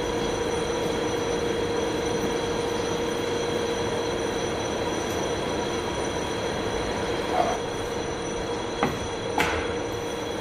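Steady machine hum from a running ultrasonic welding machine, with a constant mid-pitched tone over a noisy drone; a few faint clicks near the end.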